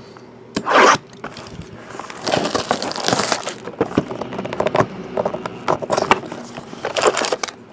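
Cellophane shrink-wrap crinkling and tearing as it is pulled off a sealed cardboard trading-card box, with scrapes and taps of the box being handled and its lid opened. The crackling comes in irregular bursts, thickest a couple of seconds in.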